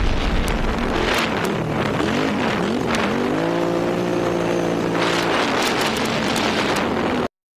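Quad bike engine running while being ridden on a dirt track: its pitch dips and rises about two seconds in, then holds steady, under a rushing noise with scattered clicks. The sound cuts off suddenly just before the end.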